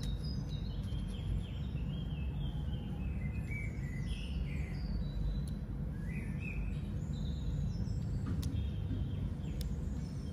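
Birds chirping in runs of short falling notes, twice, over a steady low outdoor rumble. A couple of faint sharp clicks come near the end.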